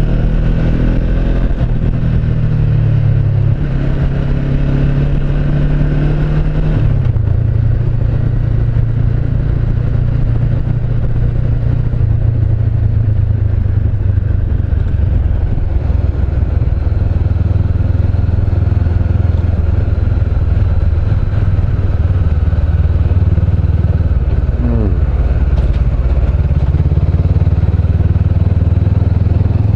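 A 2013 Honda CB500X's parallel-twin engine running while the bike is ridden, through an aftermarket Staintune exhaust. The engine note drops twice, about three and a half and seven seconds in, then holds steady.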